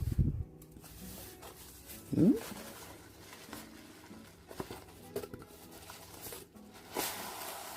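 Figure packaging being handled and pulled out of its box: plastic wrapping rustling and crinkling, with a knock at the start, a short squeak of plastic rubbing about two seconds in, a few light clicks, and a louder rustle near the end.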